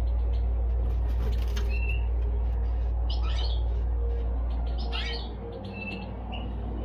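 Caged finches, goldfinches and canaries, giving a few short chirps and call notes, with some light clicks that fit wing flutters or hops on a perch. A steady low hum runs underneath.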